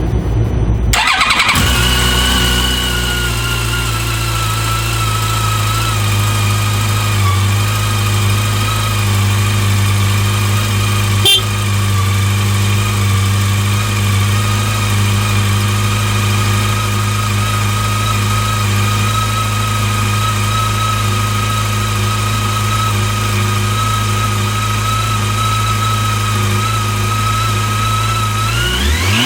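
2018 Yamaha FJR1300's inline-four engine on a cold start: it cranks briefly, catches about a second in and settles into a steady idle, its pitch easing slightly over the first few seconds. A single click is heard near the middle.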